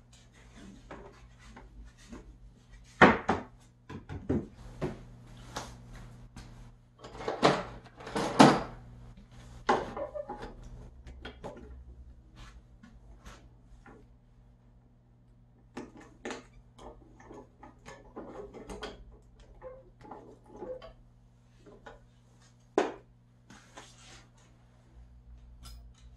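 Scattered wooden knocks and clatter as a plywood folding table and a jointed wooden puppet with its little bench are handled and set down, the sharpest knocks about 3 s in, around 8 s and near the end, over a steady low hum.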